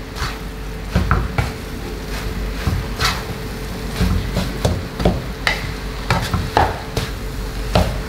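A spatula scraping and knocking irregularly against a frying pan as fried rice is stirred and tossed, over a steady frying sizzle.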